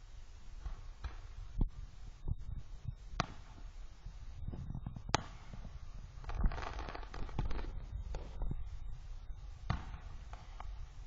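Fireworks going off: scattered sharp pops and bangs, with a denser burst of crackling about six seconds in, over a steady low rumble.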